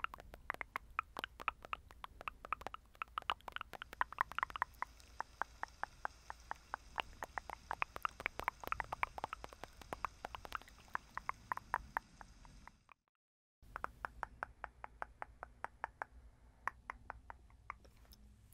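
Rapid close-up ASMR mouth sounds: wet tongue clicks at about five a second, breaking off for a moment about thirteen seconds in.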